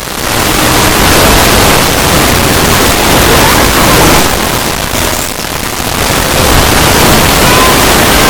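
Very loud, heavily distorted static-like noise with no clear pitched honks, dipping briefly twice: once at the start and again about five seconds in.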